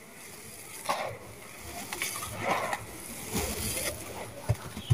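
Dry sand-and-cement mix crumbling and falling in a plastic tub: soft gritty rustles and crunches in several swells, with a couple of dull thumps near the end.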